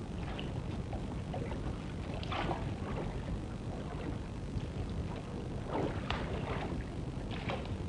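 Water splashing and lapping around a gondola as it is rowed along a canal, a few louder splashes standing out over a steady low rushing noise.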